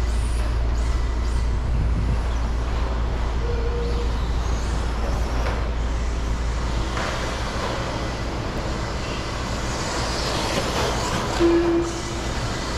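Steady running noise from electric RC stadium trucks racing on an indoor dirt track, under a low hum that eases off about halfway through as a hiss grows. A clear plastic booth pane is pushed open, with two brief squeaks, one early and one near the end.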